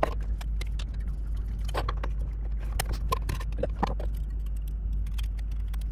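Irregular small metal clicks and clinks as a Jetboil stove's burner and metal pot support are handled and fitted onto a gas canister, over a steady low hum.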